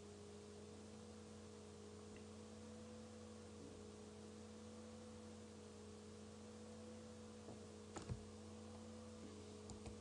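Near silence: a faint steady electrical hum, with a few faint clicks late on.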